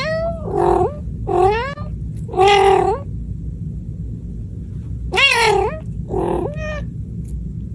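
Domestic cat meowing repeatedly: four bending meows in quick succession, a pause of about two seconds, then two more, over a steady low hum.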